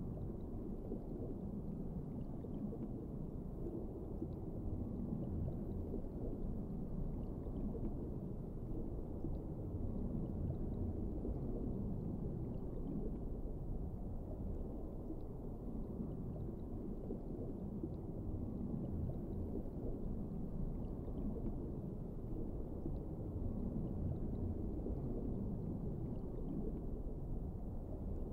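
Underwater ambience: a low, muffled rumble of water that swells and eases slowly, with a few faint ticks scattered over it.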